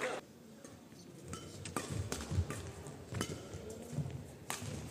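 Badminton rackets striking the shuttlecock in a rally, three sharp hits about a second and a half apart, with players' footsteps thudding on the court mat between them.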